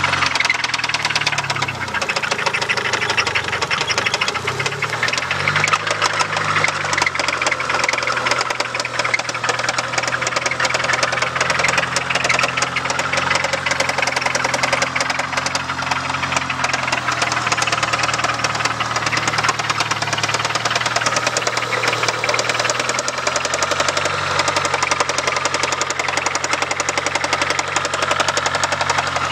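1997 Eagle Talon TSi's turbocharged 2.0-litre four-cylinder engine running with a fast, steady knock, which the owner calls a weird engine knock. The engine speed swings up and down once a few seconds in.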